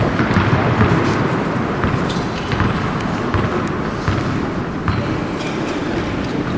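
Steady noisy din of an indoor tennis hall, with a few faint sharp knocks of a tennis ball bouncing on the hard court as a player bounces it before serving.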